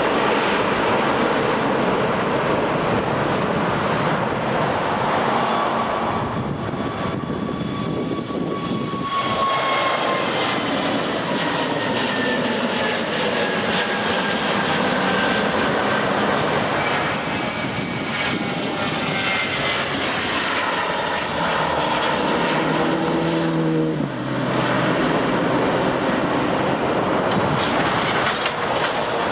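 Twin-engine jet airliners climbing out after takeoff, one after another, their engines at takeoff thrust: a steady roar with whining tones that slide down in pitch as each aircraft passes and climbs away. The sound changes abruptly a few times where one departure gives way to the next.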